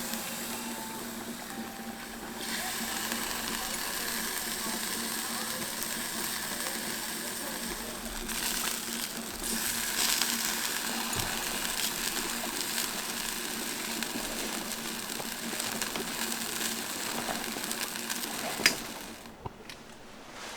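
Chicken tomahawk frying, a steady sizzle that swells about two seconds in and again about halfway through, with one sharp click near the end.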